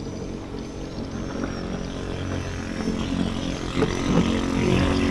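A boat's motor running steadily and getting louder toward the end.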